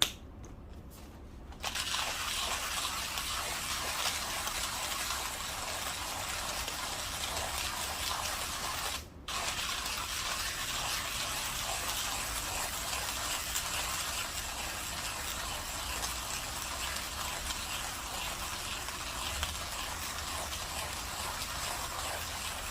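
Espresso machine pulling a shot: a steady rushing flow noise starts about two seconds in, and breaks off briefly about nine seconds in.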